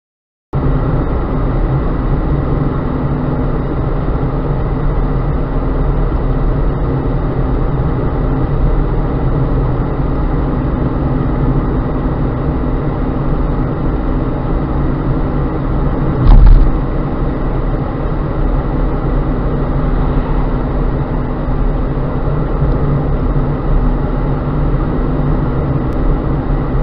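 Car driving on a paved road, recorded from inside the cabin by a cheap dashcam's built-in microphone: steady engine and tyre noise that starts suddenly about half a second in. A short, loud thump comes about sixteen seconds in.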